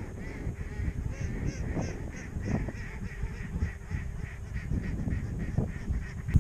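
Strong wind buffeting the microphone, a low uneven rumble, with a faint high call repeating about three times a second over it.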